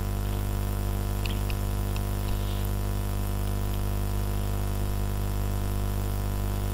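Steady electrical mains hum, a low buzz with a stack of even overtones, with a few faint clicks between one and two and a half seconds in.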